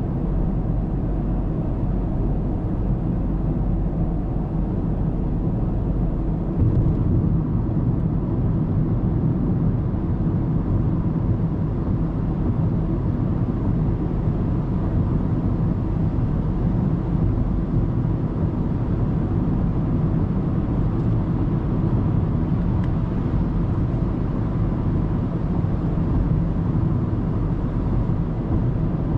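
Steady low drone of a car's tyre and engine noise at expressway speed, picked up by a dashcam inside the cabin. The noise briefly grows louder about seven seconds in.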